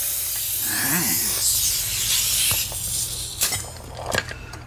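Pneumatic impact wrench spinning the flywheel nut off a Honda GCV190 engine, with a loud hiss of air that stops about two and a half seconds in. A couple of light metal clicks follow.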